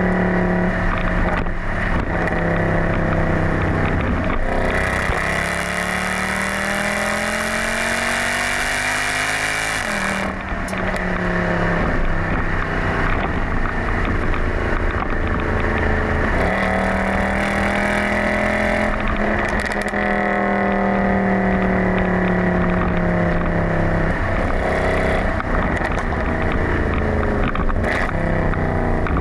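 Mercedes-Benz C63 AMG (W204) 6.2-litre V8 running through an exhaust with the secondary catalytic converters removed and a Stage 2 engine map. Under acceleration the note climbs steadily for several seconds, then drops sharply at an upshift. Later the engine speed falls slowly.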